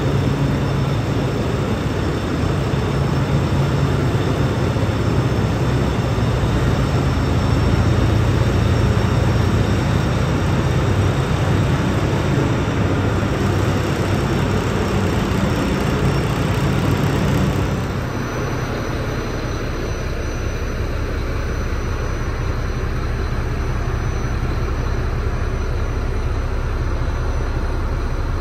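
Volvo VNL truck tractor's diesel engine idling with a steady low hum. About two-thirds of the way through it drops a little in level and sounds duller.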